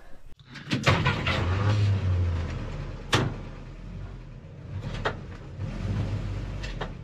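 A 1961 Jeep CJ5's four-cylinder engine running at low speed as the Jeep crawls over a dirt slope, swelling twice. A few sharp knocks from the body or suspension cut through it.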